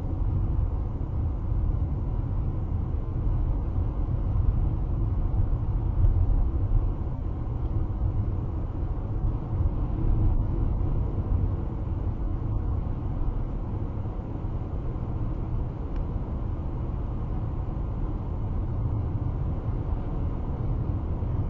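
Steady low rumble of road and engine noise inside a car's cabin, cruising at highway speed, about 75 to 80 mph.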